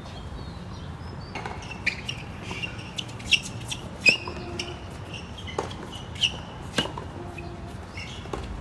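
Tennis ball struck by rackets and bouncing on a hard court during a point: a string of sharp pops, about six of them, irregularly spaced, the loudest around three and four seconds in.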